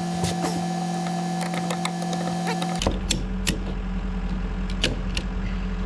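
Excavator's diesel engine running steadily, with scattered clicks and knocks. About halfway through, the sound changes abruptly to a deeper, lower engine hum.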